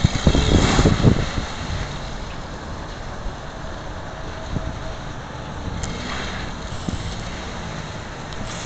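Dodge Caravan minivan driving across a wet parking lot, mostly masked by wind on the microphone. The wind gusts are strongest in the first second.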